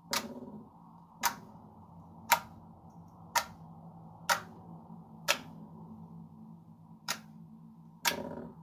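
Fingertips poking into a thin layer of slime in a glass dish, each poke giving a sharp pop, about once a second.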